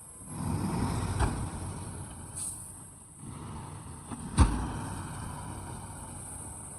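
Heavy earthmoving machinery working: machine noise swells shortly after the start, with a sharp knock about a second in and a louder bang a little after four seconds.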